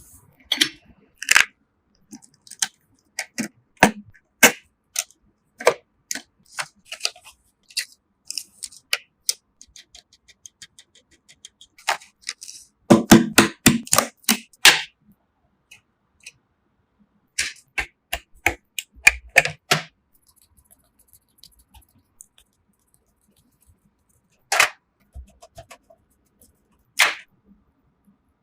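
Irregular clicks, taps and knocks of computer hardware being handled and fitted together in a PC build, with a quick flurry of them about halfway through and a few single louder knocks near the end.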